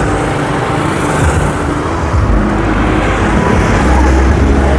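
Steady road traffic noise, with vehicles passing close by and a continuous low rumble.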